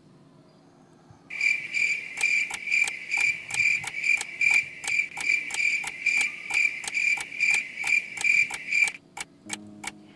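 Crickets chirping in an even, steady rhythm of about three chirps a second, starting abruptly a second or so in and stopping just as abruptly near the end: the comic 'crickets' awkward-silence sound effect. A few sharp clicks follow it.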